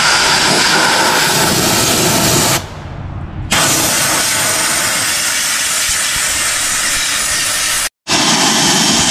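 Compressed-air spray gun hissing loudly as it blasts cleaning mist over oil residue in a car's engine bay. The hiss eases off for about a second partway through and cuts out abruptly for a moment near the end.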